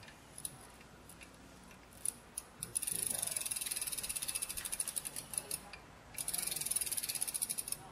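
Bicycle freewheel ratchet clicking rapidly as the wheel spins freely, in two runs that each thin out as the wheel slows.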